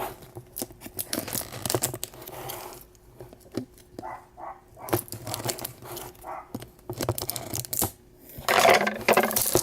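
Plastic packaging being cut open with difficulty: irregular crinkling and tearing with scattered sharp clicks.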